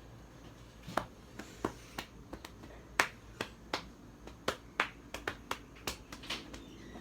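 A run of sharp, separate clicks, about twenty in six seconds at an uneven pace, starting about a second in.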